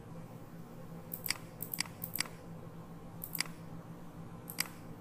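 Computer mouse clicking several times, sharp short clicks a second or so apart, some in quick pairs, over a low steady hum.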